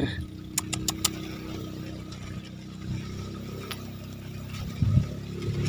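A motor hums steadily and low in the background. A quick run of four sharp clicks comes about half a second in, and a single click near four seconds.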